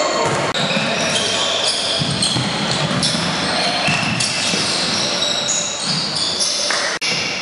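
Indoor basketball game: sneakers squeaking on the hardwood court, the ball bouncing, and indistinct players' voices echoing in the hall. The sound cuts out briefly twice, about half a second in and near the end.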